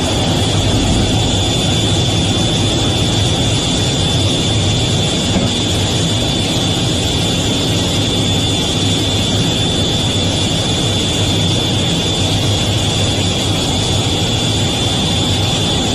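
F/A-18 fighter's twin jet engines heard from inside the cockpit in flight after the launch: a steady, unbroken rumble and rush with a high whine held on one pitch.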